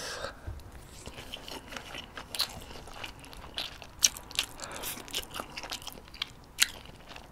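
Close-miked chewing of a mouthful of rice and bulgogi, with sharp wet mouth clicks at irregular moments, the loudest about four seconds in.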